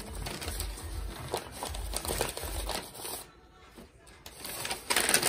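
Brown paper lunch bags rustling and crinkling as a paper bag star is fanned open by hand. There is a short lull about three seconds in, then louder rustling near the end.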